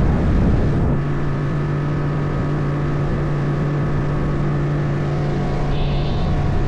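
Outboard motor of a small runabout boat running steadily under way, a constant engine hum over rushing water and wind noise.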